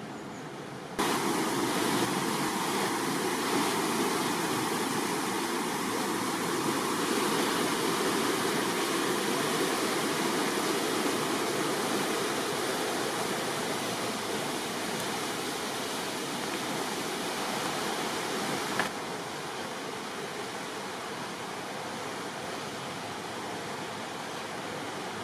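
Steady rush of a fast-flowing river. It jumps louder about a second in and drops back somewhat about three-quarters of the way through.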